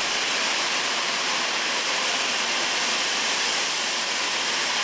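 Natural gas jetting from a fractured 8-inch pipeline: a loud, steady hiss.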